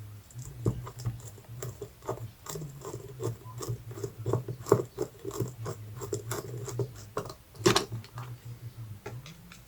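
Small carburetor parts and hand tools clicking, tapping and scraping during hand reassembly of a 49cc mini quad carburetor, with one sharper knock about eight seconds in. A low steady hum lies underneath.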